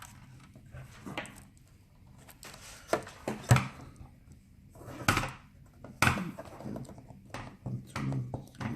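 Scattered sharp clicks and knocks of hands handling a laptop's screen assembly and its plastic parts, the loudest about three and a half seconds in.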